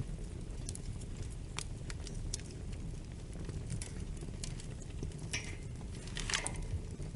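Wood fire in a fireplace crackling: scattered small pops over a steady low rumble of flames, with louder clusters of crackles a little after five and six seconds in.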